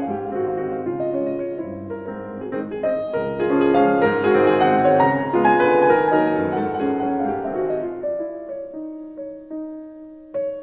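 Background piano music playing slow held notes, getting quieter toward the end.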